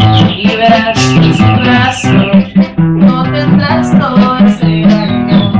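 Nylon-string acoustic guitar played in a quick, rhythmic run of plucked notes and chords.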